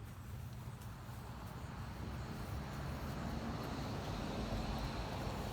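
A steady low rumble, like a vehicle engine running, slowly growing louder.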